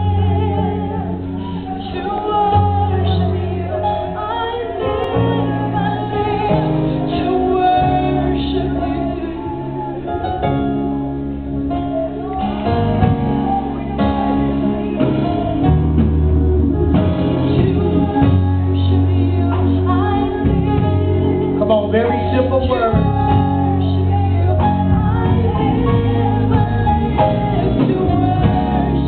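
A woman singing a worship song into a microphone through the church PA, over instrumental accompaniment with deep, held bass notes.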